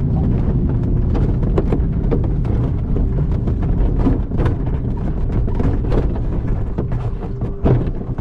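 Ventus cT glider's landing rollout on grass: the main wheel rumbling over the turf, with the airframe knocking and rattling over bumps, easing slightly near the end as it slows.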